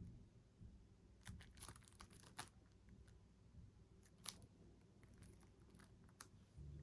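Faint clicks and crinkles of a CD's packaging being handled: a cluster of small sharp sounds about a second in, then a single click later.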